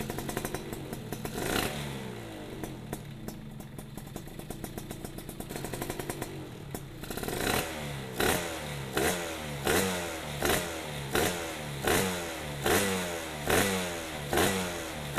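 Suzuki Satria two-stroke underbone engine, fitted with an ABRT20 under-slung expansion exhaust and CMS silencer, idling with a couple of small revs. About halfway through it starts being blipped over and over, a quick rise and fall in revs roughly every three-quarters of a second.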